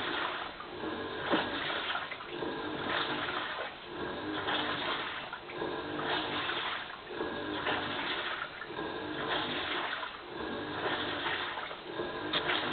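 Toshiba AW-DG16WAG top-loading washing machine in its wash cycle: the pulsator turning back and forth through the water, a swishing surge with a motor whine about every one and a half seconds. The owner records this as abnormal motor noise.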